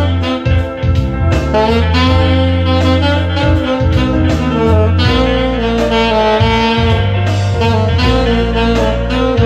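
Saxophone playing a melody over a backing track with a steady bass line and drums.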